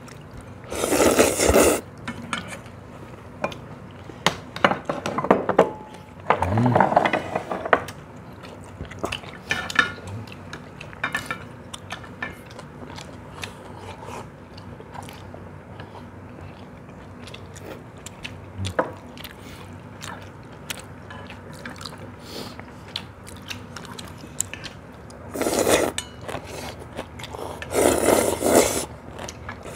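Noodles of cold bean-milk soup slurped loudly from stainless steel bowls in four bursts, one about a second in, one a few seconds later and two near the end, with chopsticks and spoons clicking against the steel bowls throughout.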